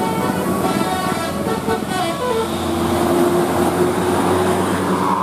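Bus telolet horn, a multi-tone musical air horn, playing a tune of stepped notes with a longer held note about halfway through, over steady vehicle noise.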